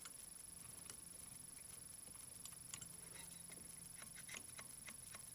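Near silence: faint shop room tone with a low steady hum and a few light scattered ticks.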